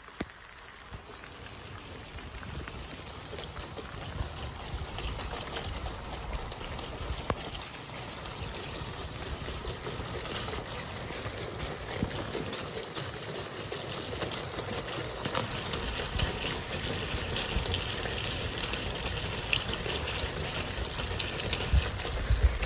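Rainwater trickling down a house downspout into a corrugated drain pipe, with many fine drips. It grows louder toward the end.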